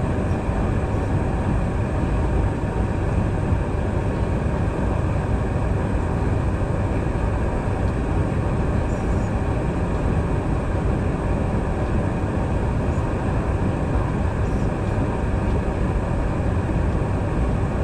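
Steady cabin noise inside a Boeing 717-200 airliner: a constant low rumble and hiss with faint steady tones on top, unchanging throughout.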